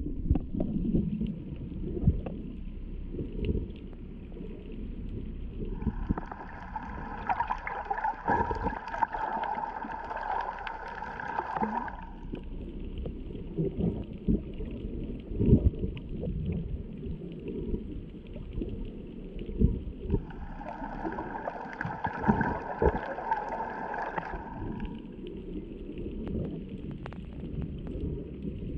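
Underwater sound picked up by a camera below the surface: a muffled low rumble with scattered knocks and clicks. Twice it is joined by a steady higher hum, for about six seconds and then about four.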